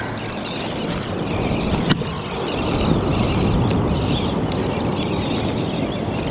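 Steady noise of breaking surf and wind on an open beach, with one sharp click about two seconds in.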